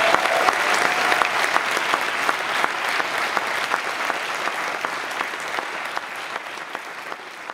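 Theatre audience applauding, the clapping gradually fading away.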